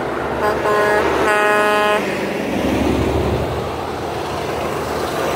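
Truck horns sounding from a passing convoy: two short toots, then a longer horn blast of under a second, about a second in. A heavy diesel truck's engine and tyres then go by close to the road, swelling and fading.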